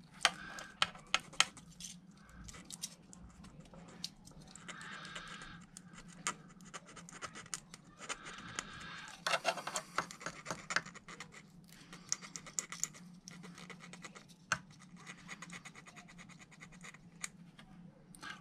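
Small hand file scratching inside a tiny carburetor jet as it is reamed out, in short bouts of rasping with scattered clicks from the metal parts in the fingers. The jet is being cleared of the deposits that were choking it.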